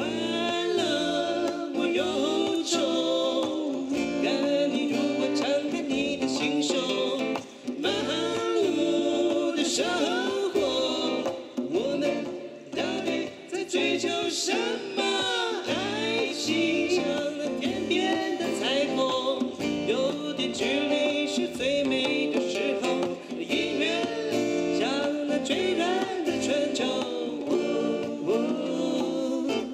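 A song performed live: a man sings into a microphone while strumming an acoustic guitar.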